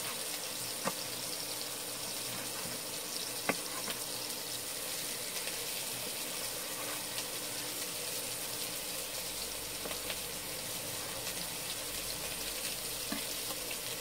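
Steady sizzling hiss of vegetables frying in a hot, oiled wok over high heat. A couple of sharp knife taps on a wooden cutting board about one and three and a half seconds in.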